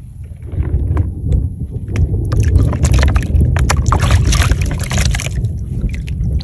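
Water sloshing and splashing in a plastic basin as it is dipped into shallow ditch water, with a dense run of small splashes from about two to five seconds in over a steady low rumble.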